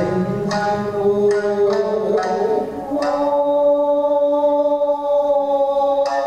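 Nagauta music: shamisen plucked in sparse, sharp strokes under a bending sung line, then a long held note from about three seconds in, with the plucking picking up again near the end.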